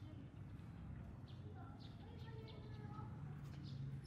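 Faint birds chirping in short high calls, over a steady low hum and distant voices.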